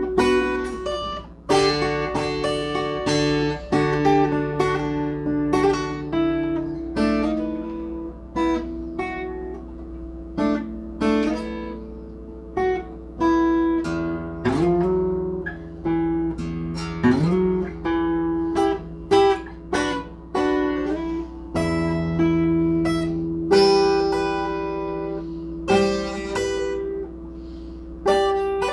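Acoustic guitar being played: picked notes and strummed chords, each ringing out and fading, with a couple of notes sliding up in pitch about halfway through.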